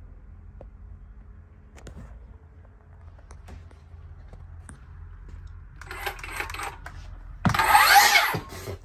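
Light clicks and handling, then a battery-powered circular saw is triggered twice near the end: a short burst, then a louder run of about a second.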